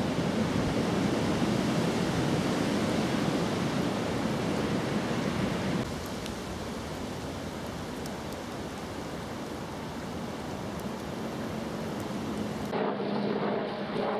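Steady hiss of rain falling on canal water. The level drops a little about six seconds in, and the sound changes abruptly near the end, losing its upper hiss.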